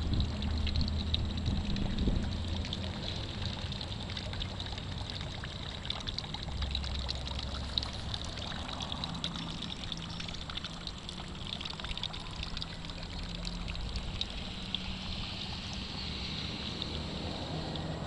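Small garden fountain trickling steadily, thin streams of water splashing down into a barrel pool. Wind buffets the microphone in places.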